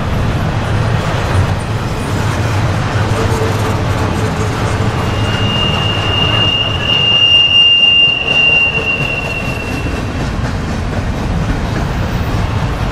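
Double-stack intermodal freight train's well cars rolling past on the rails, a steady rumble with wheel clatter. From about five seconds in, a high steady metal squeal joins it for about five seconds, then fades.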